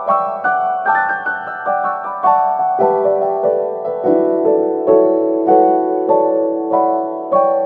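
Background piano music: a melody of single notes struck about twice a second.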